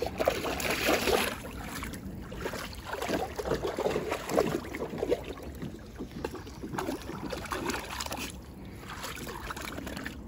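Dog pawing and stepping in shallow water in a plastic kiddie pool: irregular splashing and sloshing in uneven bursts with short lulls between.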